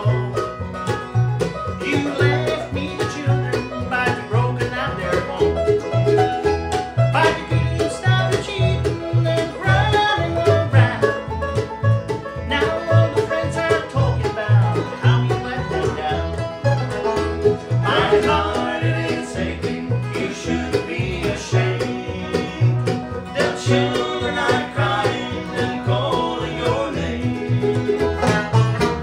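Bluegrass band playing: a man singing lead over strummed acoustic guitar, mandolin and banjo, with an upright bass plucking a steady beat underneath.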